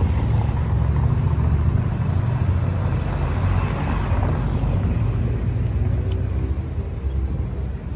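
Buzzing of a camera drone's propellers over a steady low rumble.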